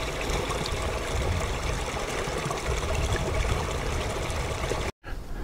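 Small moorland stream trickling and running along a narrow channel through grass, a steady watery rush with a low rumble underneath. It cuts off abruptly near the end.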